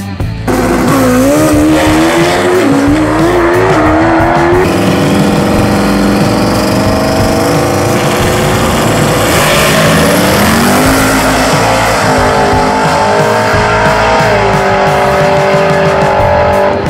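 Drag race car engines revving and accelerating, with tire squeal. The sound changes abruptly a couple of times as one run gives way to another.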